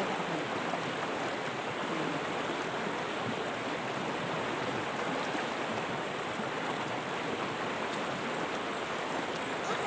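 River water rushing over rocks: a steady, even roar of flowing water.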